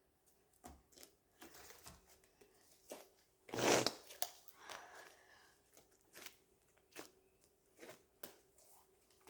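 Homemade glue slime being kneaded and pulled apart by hand: a string of short, sticky tearing and squishing noises, with one louder rush of noise about three and a half seconds in.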